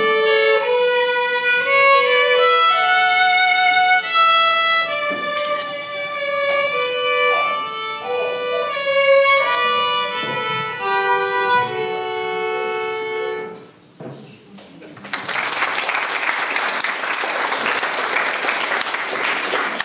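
Solo violin playing a slow melody that ends about thirteen seconds in, followed after a short pause by audience applause.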